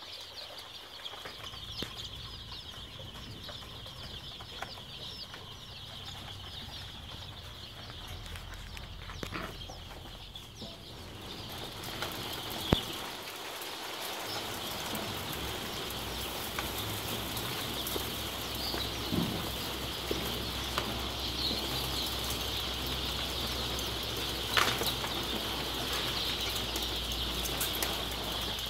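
A brooder full of young chicks peeping constantly in a dense, high chorus. From about halfway through, a low steady hum runs under it, with a few sharp knocks.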